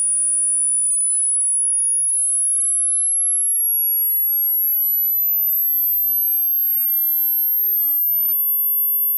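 Hearing-test tone: a single pure, very high-pitched sine tone at a steady loudness, gliding slowly upward in pitch.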